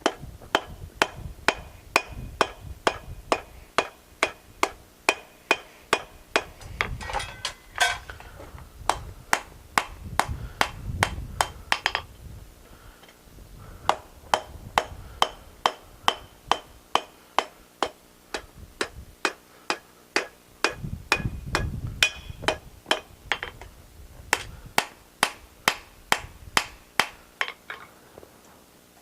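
Blacksmith's hammer striking steel on an anvil in steady runs of about two blows a second, each blow with a bright ring, with short pauses between runs.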